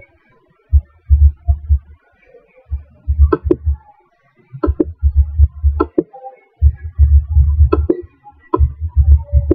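Computer keyboard keys and mouse clicks while code is being edited: groups of sharp clicks over low thuds, with short pauses between the groups.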